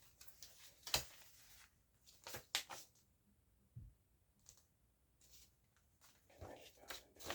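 Scattered sharp taps and clicks from hands handling an object close to the microphone: a single tap about a second in, three quick ones near the middle, and a short flurry near the end.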